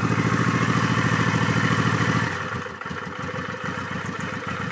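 Honda Shadow's V-twin engine idling fast and steady on choke; a little over two seconds in, the idle drops, going quieter and more uneven as the choke is taken off.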